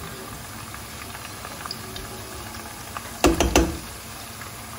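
Chopped spring onion, celery and green pepper sizzling steadily in oil in a frying pan. A bit past three seconds in come two sharp knocks close together, a spoon striking the pan as a second dollop of tomato purée goes in.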